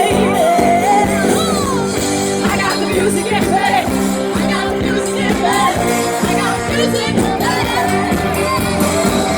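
Live cover band playing a pop-rock song: a lead singer over held chords and a steady drum beat, with some crowd shouts.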